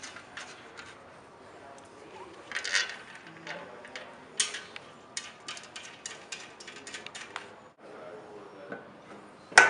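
Light metallic clicking of an Allen key turning and reseating in the bolts that fasten a table leg: irregular ticks that become quicker and more even for a couple of seconds. A louder single knock comes near the end.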